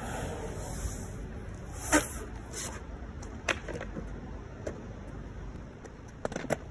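Surfskate wheels rolling over asphalt as the board carves past, with a few sharp clicks and clacks, the loudest about two seconds in.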